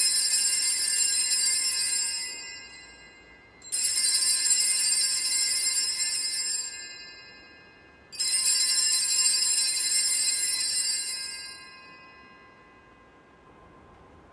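Altar bells rung three times, each ring starting sharply and fading over about three seconds, roughly four seconds apart, marking the elevation of the chalice at the consecration.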